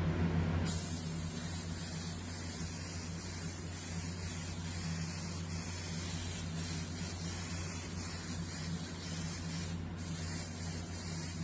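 Gravity-feed airbrush spraying grey paint through a stencil: a steady high hiss of air and paint that starts about a second in, cuts out for a moment near the end, then starts again. A steady low hum sits underneath.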